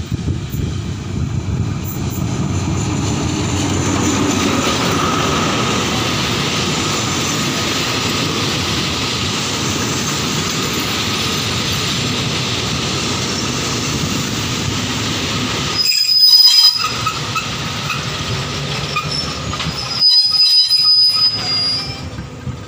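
Thai passenger train running past on the platform track. The Alsthom diesel locomotive with its MTU engine runs loudly as it comes up and passes, then the coaches roll by with a steady rumble of wheels on rail. Sharp, high-pitched wheel squeals come about two-thirds of the way through and again near the end.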